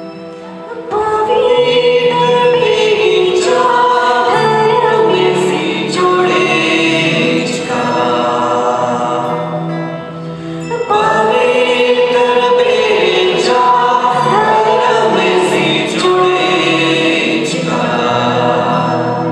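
Background song with singing voices over instruments. The singing comes in about a second in and pauses briefly near the middle before going on.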